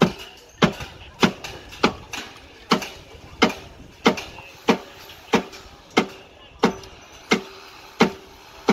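Steady hammer blows on metal, about three every two seconds, each strike leaving a short metallic ring.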